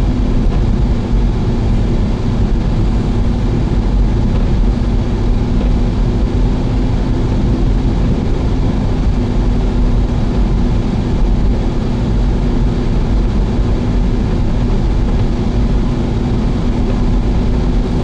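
Steady road noise of a car driving, heard from inside the cabin: engine and tyre rumble with a constant low hum.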